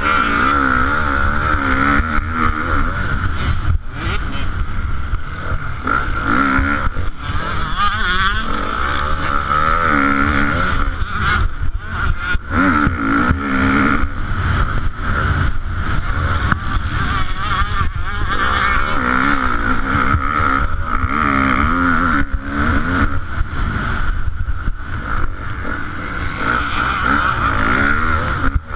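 KTM motocross bike engine revving hard under racing load, its pitch rising and falling every couple of seconds as the rider opens and closes the throttle and shifts gears, heard close up from on board the bike.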